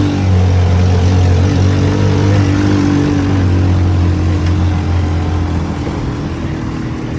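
Buggy's DF200GKV small single-cylinder engine running hard at steady high revs, then easing off slightly near the end.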